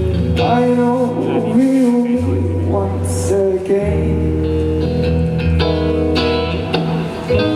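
Music: a band playing an instrumental stretch of a pop song, with guitar over steady bass notes and a wordless, wavering sung line in the first couple of seconds.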